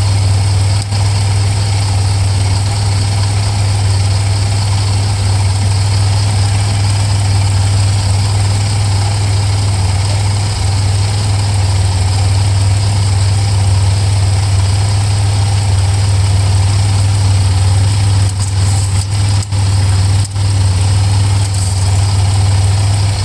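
A 2005 Pontiac Grand Prix CompG's supercharged 3800 V6 idling steadily, running while the automatic transmission fluid level is checked and topped off.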